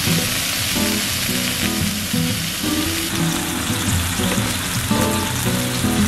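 Pork-belly-wrapped cherry tomato skewers sizzling steadily as they fry in a frying pan, with soft background music playing underneath.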